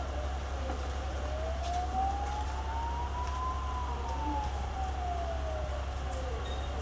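Emergency siren wailing in one slow rise and fall: it climbs for about three seconds, falls for about three, and starts climbing again near the end, over a steady low rumble.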